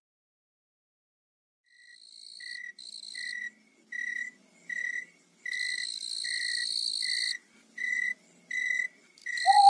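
Crickets chirping in a night ambience, starting about two seconds in: a steady pulsing chirp about one and a half times a second, with a higher, shriller chirping coming and going over it. A lower tone swells in right at the end.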